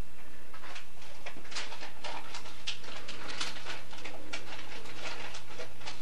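Budgerigar chattering: many short, irregular high chirps and twitters, over a steady low electrical hum.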